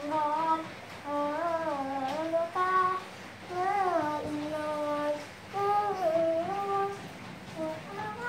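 A young boy humming a wordless Thai khon dance melody in a high voice, holding notes with slides and wavers. It comes in four short phrases with brief breaks for breath.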